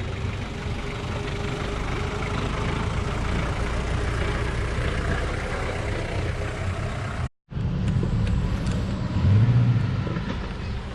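Off-road vehicle's engine running steadily, the sound cutting out completely for a moment about seven seconds in and swelling louder near the end.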